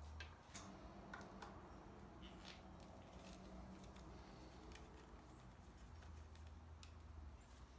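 Faint, scattered clicks of a T25 Torx bit turning a screw out of a motorcycle handlebar switch housing, over a low steady hum.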